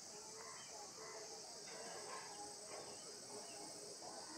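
Faint background sound: a steady high-pitched chirring of insects, with faint distant voices underneath.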